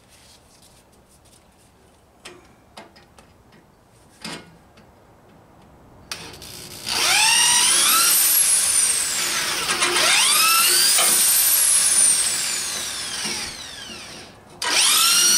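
Hand-held electric drill drilling through the heads of pop rivets on a metal bracket. About six seconds in the motor spins up with a rising whine that sags as the bit bites, is run up again a few seconds later, stops, and starts once more near the end. A few light handling clicks come before it.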